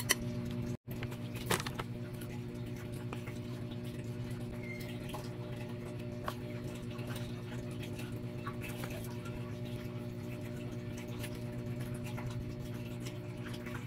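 Crumbs sprinkled from a spoon onto a soft cream layer, a faint scattered pattering with a few light ticks, over a steady low hum.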